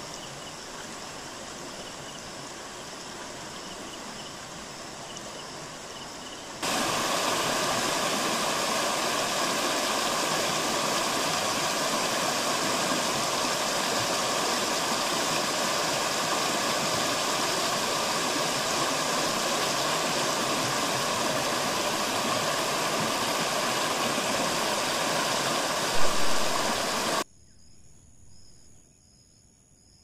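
A steady, loud rushing noise that starts suddenly about a quarter of the way in and cuts off suddenly near the end, with a short louder bump just before it stops. Before it, a softer rushing with faint repeated high chirps; after it, a quiet stretch with thin high steady chirring.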